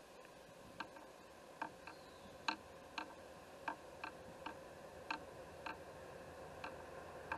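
Sharp, irregular ticks, about two a second, over a faint steady hum and a low rumble that slowly grows as a distant freight train approaches.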